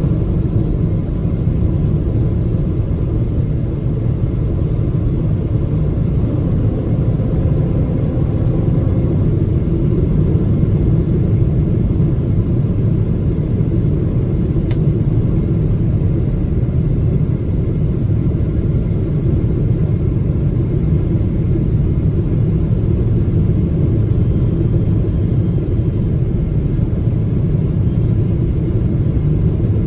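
Steady low rumble of engine and airflow heard inside the cabin of a Boeing 777-300ER with GE90-115B engines, on descent. One faint click about halfway through.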